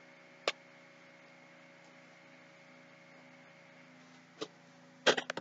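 A steady low electrical hum with a single sharp click about half a second in, a softer click near the end, and then a quick run of several sharp clicks or taps.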